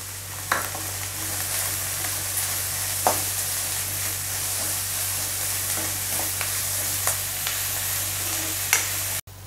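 Chopped onions and curry leaves sizzling in hot oil in a metal kadai, stirred with a metal spatula that scrapes and clicks against the pan a few times. The sizzle drops away suddenly near the end.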